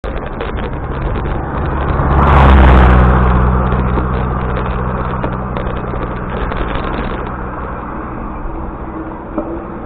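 Motor vehicle engine running, with a vehicle passing close by: it is loudest about two and a half seconds in, then slowly fades.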